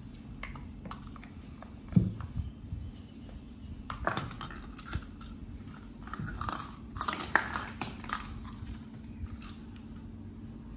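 Small objects being handled: scattered light clicks and clinks, with a single knock about two seconds in and a busier stretch of clicking and rustling between about four and eight seconds. A faint steady low hum runs underneath.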